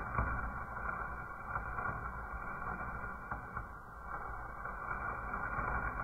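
A burning sparkler fizzing steadily with a few faint scattered crackles, heard dull and muffled with no bright top end.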